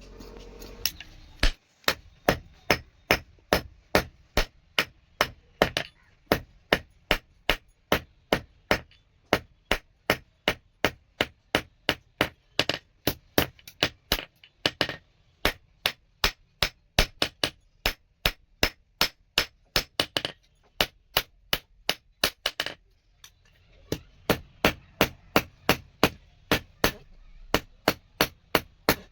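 Hand hammer striking a steel rod being forged into a knife on an anvil, steady blows at about two to three a second. The hammering breaks off briefly near the end, then starts again.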